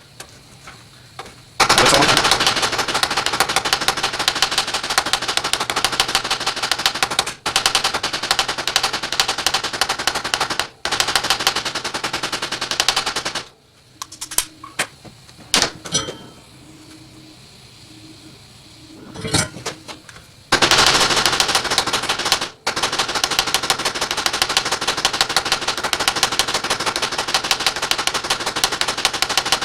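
A fast, even mechanical rattle of many clicks a second, like a small power tool or machine chattering. It stops for about seven seconds in the middle, where only a few single clicks and a faint hum are heard, then starts again.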